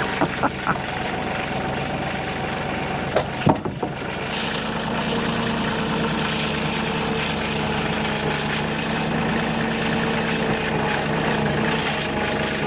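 Large Husqvarna chainsaw running under load as it rips lengthwise through a big log, with a few sharp knocks about three and a half seconds in; after that the engine note settles lower and steadier with more hiss of chain in wood.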